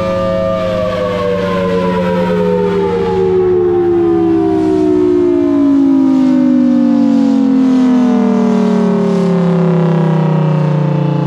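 Federal Signal Thunderbolt 1003 outdoor warning siren winding down after a short blast: its steady tone begins falling in pitch about half a second in and keeps sliding lower as the rotor slows.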